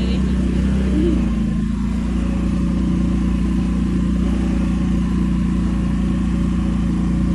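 Quad bike engine running at a steady speed as it is ridden.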